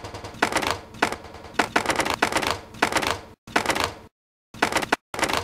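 Computer keyboard typing: rapid keystrokes in short bursts, each about half a second long, with brief pauses between them.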